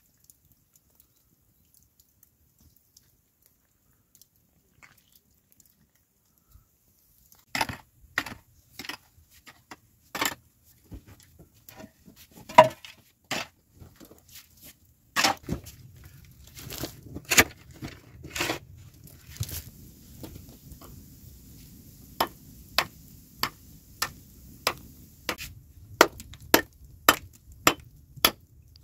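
A few seconds of near silence, then irregular knocks and scrapes of a pick digging into stony earth. In the last part, a hand tool strikes a rock in quick, steady blows, nearly two a second.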